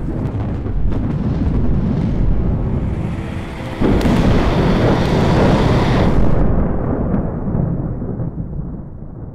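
Thunder sound effect: a heavy rumble, with a louder thunderclap about four seconds in that slowly rolls away and fades near the end.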